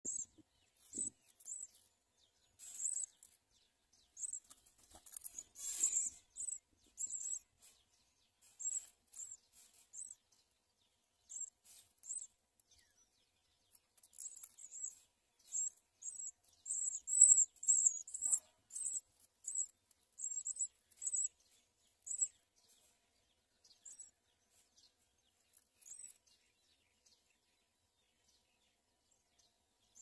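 Songbird nestlings begging in the nest: thin, high chirps in short runs, densest and loudest around the middle while the adult feeds them, then only a few scattered chirps near the end.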